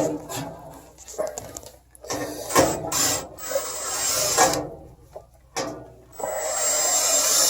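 Irregular knocks and scraping as pads are fitted to the bottom of a furnace, with a steadier rushing noise starting about six seconds in.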